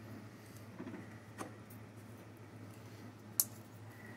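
Quiet workbench handling of a steel bolt carrier being clamped in a bench vise: a few faint knocks about a second in, and one sharp click about three and a half seconds in. A faint steady low hum sits underneath.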